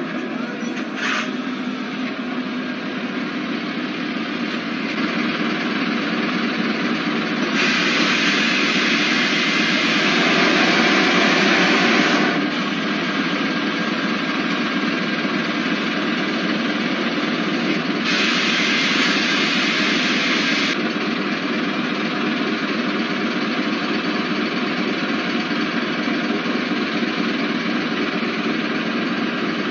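Heavy truck's engine running steadily, with two long hissing bursts of several seconds each, the first about a third of the way in and the second past the middle.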